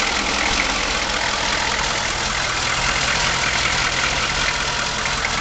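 Chevy 6.2-litre diesel V8 idling steadily, heard close up at the open engine cover inside the van.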